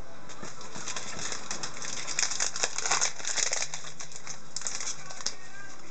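Crinkling and crackling as a foil trading-card pack wrapper is handled, densest in the middle and thinning out near the end.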